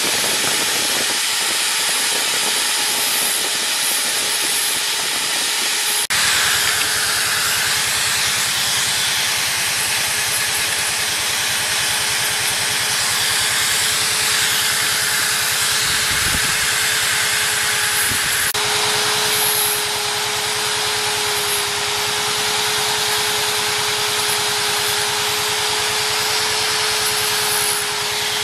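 Handheld electric rotary tool with a carving burr running at a steady whine while it grinds into wood, with a continuous hiss. The sound changes abruptly twice, about a third and two-thirds of the way through.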